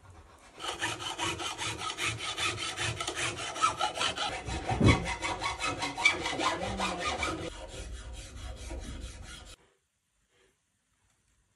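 Fast back-and-forth rubbing strokes along the edge of a bass guitar's maple neck, several strokes a second, dressing the sharp ends of newly fitted frets. The strokes start about half a second in and stop abruptly near the end.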